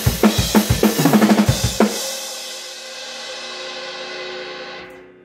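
Drum kit played in a driving punk rock beat, bass drum and snare hitting in a steady rhythm with cymbals, ending on a final hit about two seconds in. The cymbals and the song's held last chord then ring out and fade away near the end.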